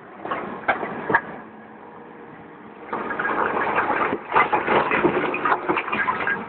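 Cat 322 excavator's diesel engine running steadily, under the clatter and cracking of concrete blocks being broken and knocked down by the bucket. A short burst of knocks comes about a second in, and a longer, denser run of crashing and scraping fills the second half.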